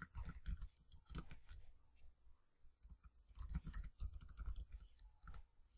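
Faint computer keyboard typing: scattered keystrokes in two runs, one at the start and one in the second half.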